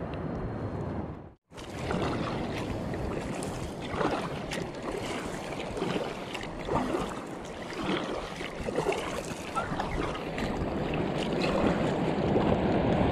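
Water splashing and wind noise around a kayak at sea, with irregular splashes about every second. The sound cuts out briefly about a second and a half in.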